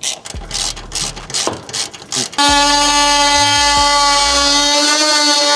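A ratchet wrench clicking in quick strokes as bolts under the car are tightened. About two and a half seconds in it gives way to the loud, steady buzz of an oscillating multi-tool cutting into a plastic underbody panel.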